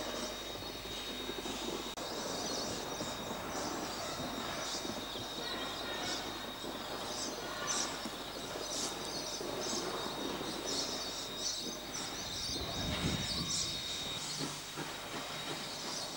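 Ex-Queensland Railways D17 steam tank locomotive working along the narrow-gauge line, with irregular exhaust beats over a steady steam hiss. A brief low rumble comes near the end.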